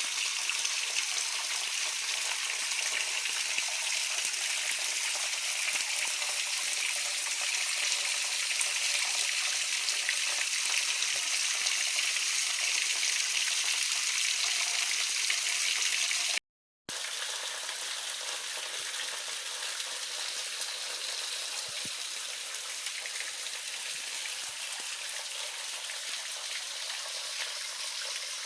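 Waterfall rushing steadily, an even hiss of falling water. It cuts out completely for about half a second a little past halfway, then resumes slightly quieter.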